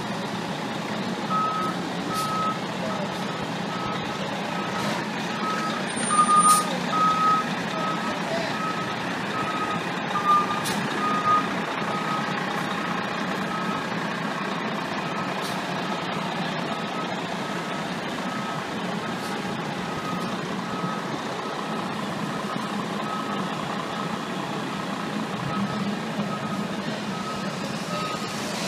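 A Seagrave fire engine's reversing alarm beeping about once a second as the pumper backs into its firehouse, over its diesel engine running steadily. A few short, louder hisses or knocks come about six and ten seconds in.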